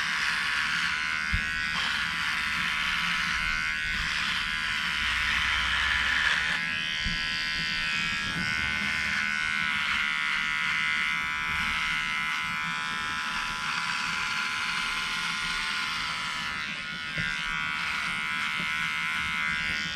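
A cheap electric dog-grooming clipper buzzing steadily as its blade trims a beard.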